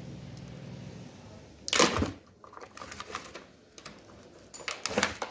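A steady low electric hum that fades out about a second and a half in, then a loud knock and scattered clicks and clatter of small hard parts being handled while an e-bike battery is taken apart.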